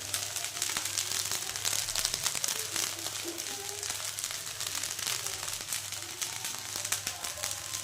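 Food frying in hot oil in a pan: a steady sizzle with dense fine crackling.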